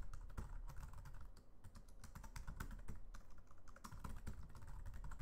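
Typing on a computer keyboard: a quick, continuous run of key clicks as a line of code is entered.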